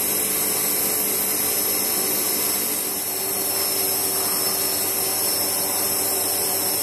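Steady machine noise: an even whoosh with a faint hum from a running motor.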